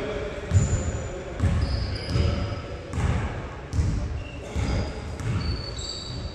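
Basketball being dribbled on a hard indoor court, a low bounce about every 0.8 s, with short high squeaks of sneakers on the floor.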